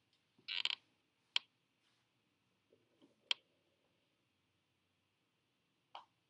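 A few sharp clicks against a quiet room: a short clattering burst about half a second in, then three single clicks spread over the next five seconds.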